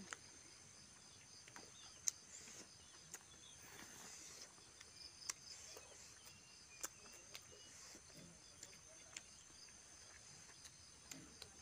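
Faint eating sounds: scattered sharp lip smacks and mouth clicks of people chewing with their mouths close to the microphone, over a steady high-pitched insect chorus.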